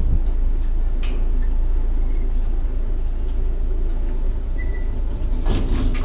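A river ferry's engine running steadily with a low hum while the ferry lies at the landing.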